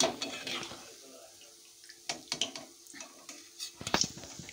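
Wire-mesh spider strainer clinking and scraping against a steel kadai as fried gulab jamuns are lifted out of hot ghee: a few sharp metal clicks, the loudest near the end, over faintly sizzling ghee.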